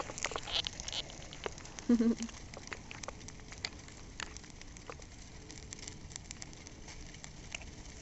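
Burning cardboard-box bonfire crackling: irregular sharp pops and ticks over a faint hiss. A brief voice sound comes about two seconds in.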